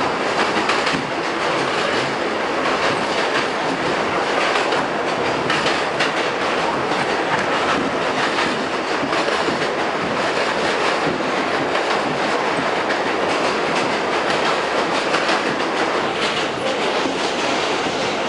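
Inside a Westinghouse R68 subway car running along the track: a steady loud rumble and hiss of steel wheels on rail, with a rapid run of clicks over the rail joints.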